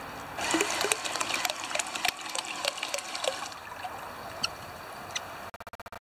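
Water splashing and lapping around a small Lego Technic remote-control boat built from plastic bottles, with a quick run of sharp splashy ticks for about three seconds, then a quieter steady wash with a few last drips.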